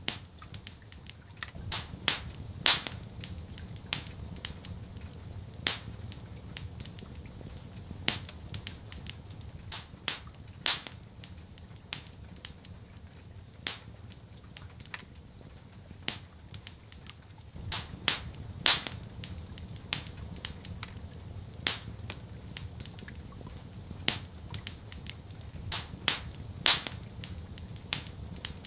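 Wood fire in a fireplace crackling, with irregular sharp pops, some louder than others, over a low steady rumble.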